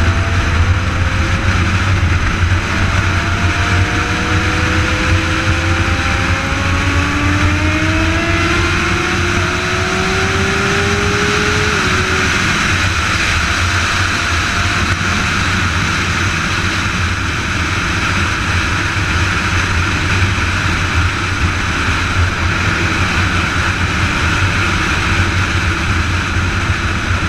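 Sport motorcycle riding at highway speed with heavy wind rush on the microphone; the engine climbs in pitch through the gears, dropping back at shifts about eight and twelve seconds in, then runs steady at cruising speed.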